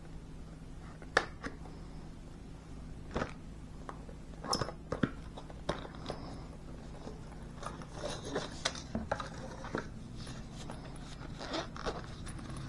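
A knife box and its packaging being opened and handled: scattered sharp clicks, scrapes and rustles, the loudest click about a second in and a busier run of handling noises in the second half.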